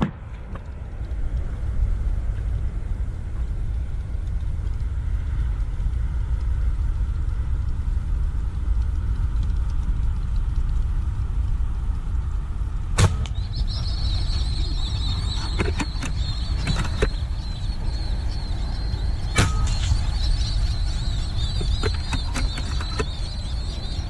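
Two sharp air-rifle shots from a Blacan X PCP rifle, about six seconds apart in the second half, over a steady low rumble. A thin, steady high-pitched whine sets in just after the first shot and keeps on.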